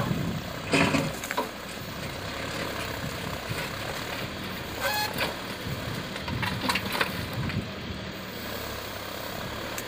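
Tractor diesel engine running steadily while its rear-mounted backhoe digs into rubble, with several short clanks and knocks from the bucket and stones, one about a second in and a cluster between about five and seven and a half seconds.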